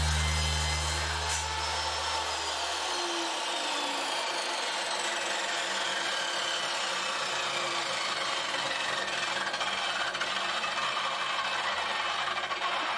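Homemade table saw coasting down after a crosscut. The motor's low hum cuts out about three seconds in. A whine falling slowly in pitch and a steady rushing noise carry on as the blade spins down.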